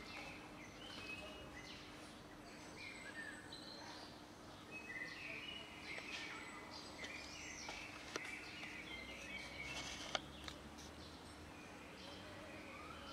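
Small birds chirping, mixed with the soft crackle of a cat crunching dry kibble. One sharper click comes about ten seconds in.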